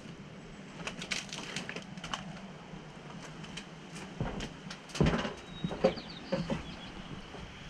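Footsteps crunching over debris on the floor of an old log cabin: scattered crackles and clicks, then several heavier thumps about four to six and a half seconds in.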